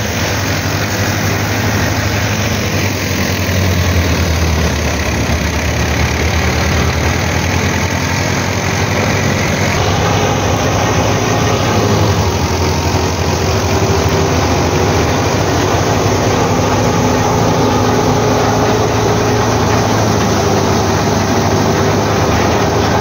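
Massey Ferguson 240 tractor's three-cylinder diesel engine running steadily under load, driving a wheat thresher through its PTO shaft. The thresher's drum and fan add a continuous rushing whir.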